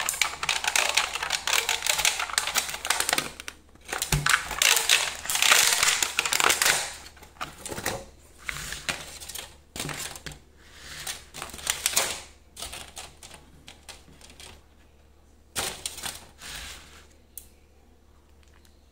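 Thin clear plastic lid of a takeaway food box being unclipped and pulled off, with dense crinkling and clicking plastic for the first several seconds. After that come sparser rustles and taps as the box is handled.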